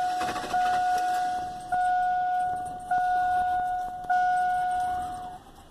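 GMC Sierra pickup's dashboard warning chime dinging repeatedly, one clear ding about every 1.2 seconds, each fading before the next, then stopping shortly before the end.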